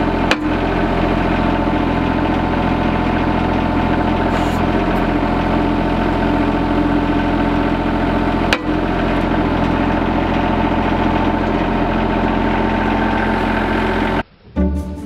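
RK24 subcompact tractor's diesel engine running steadily while the backhoe works, with two brief clicks. The engine sound cuts off abruptly near the end and plucked string music starts.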